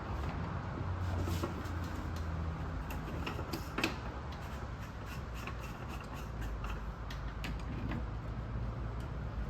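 Scattered light clicks and rubbing as plastic pipe legs and screw caps are handled and fitted to the platform, with one sharper click about four seconds in, over a steady low hum.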